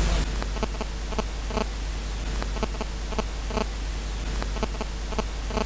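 Homemade crystal radio's output dropping from a station into a hiss of static about a quarter of a second in, then a run of sharp clicks, about two a second: the unexplained weird noise the set sometimes makes.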